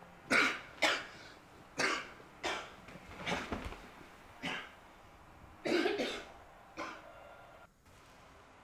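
A person coughing in a fit: about nine harsh coughs at uneven intervals, the last one weaker.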